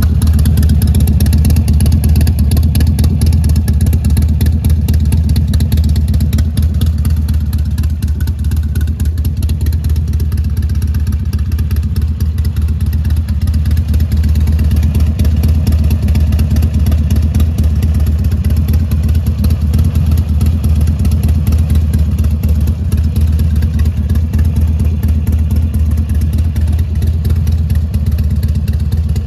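Buell XB12S Lightning's 1203 cc air-cooled V-twin idling steadily, a loud, even low-pitched beat.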